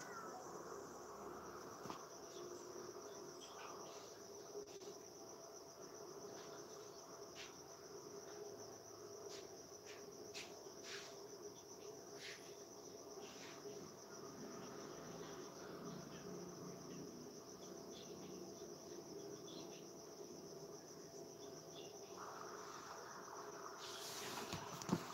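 Faint, steady high-pitched insect chirring, with a steady low hum beneath and a few scattered clicks.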